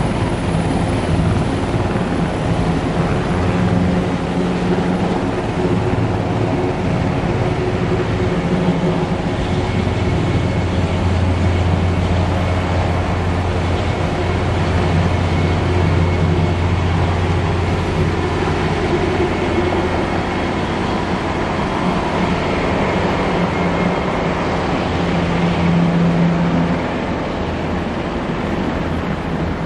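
Eurocopter AS332 Super Puma's four-bladed main rotor and twin turbine engines running at close range: a steady heavy rotor beat with a faint turbine whine above it. It gets a little quieter near the end as the helicopter flies off.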